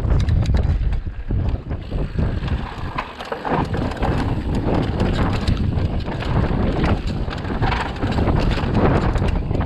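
Wind rushing over the microphone of a bike-mounted camera, with the rattling and knocking of a mountain bike on the move.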